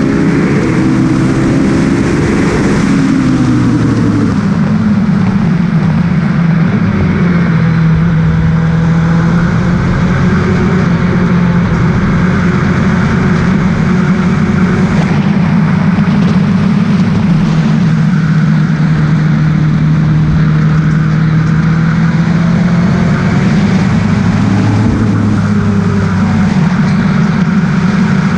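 Williams FW29 Formula One car's engine running at speed, heard from the cockpit. Its pitch drops about three seconds in, holds steady for a long stretch, then rises briefly near the end.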